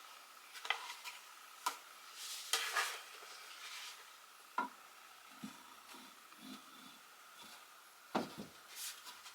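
Scattered light clicks and knocks with a short scrape of shelves and shelf hardware being handled and pushed into place, a few seconds apart.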